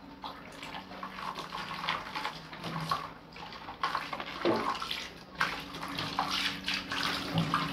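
Water running from a tap and splashing unevenly, with small knocks, over a faint steady hum.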